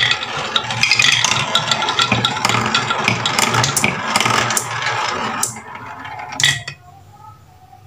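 Marbles rolling and rattling around a wooden spiral marble-run track, clicking against its wooden walls. The rolling dies away about five and a half seconds in, with one last click a second later.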